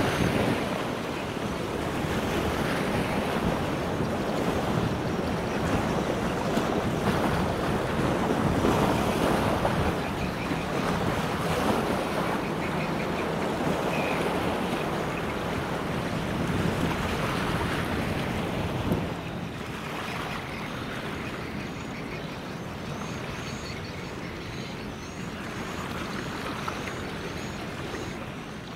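Wind buffeting the microphone over river water washing and lapping, a steady rushing noise that eases somewhat about two-thirds of the way through.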